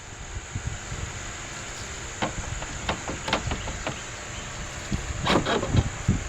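Scattered metal clicks and knocks of hand work on the radiator's top mounting brackets, with a louder clatter about five seconds in, over a steady high chirring of insects.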